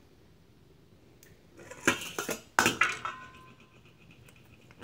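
Metal pots and utensils clattering: a quick run of clinks and knocks about two seconds in, the last leaving a short metallic ring.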